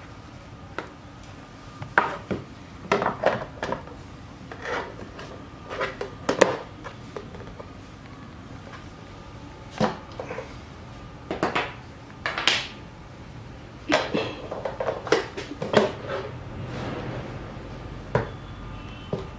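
Plastic parts of a mandoline slicer clattering and knocking against each other and on a wooden tabletop as they are handled: irregular clicks and taps, several in quick clusters.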